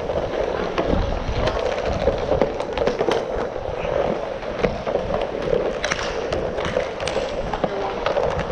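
Inline hockey skate wheels rolling steadily over a plastic sport-tile rink floor, heard from the skater's helmet, with many scattered sharp clicks and clacks from sticks and puck.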